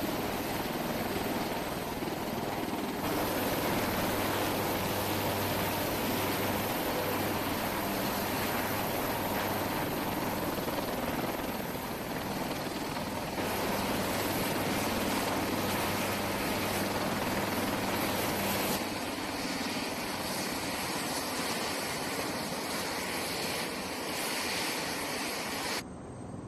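AH-1Z Viper attack helicopter's twin turbine engines and four-blade rotor running as it hovers in and sits on the ramp. A steady loud rotor and turbine noise with a constant low hum, shifting abruptly in tone a few times.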